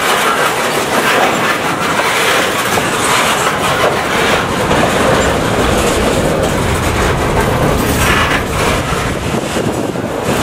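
Freight train led by an EMD GP9 diesel locomotive rolling past, its wheels clacking over the rail joints.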